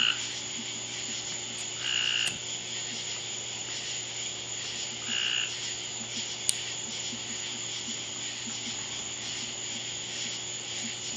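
Frogs calling in the night, three short croaks spaced two to three seconds apart, over a steady background hum; a single sharp click about six and a half seconds in.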